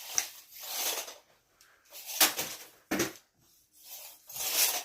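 A retractable tape measure's steel blade being flung out and reeled back in again and again: four or so rasping swishes, some starting with a sharp click.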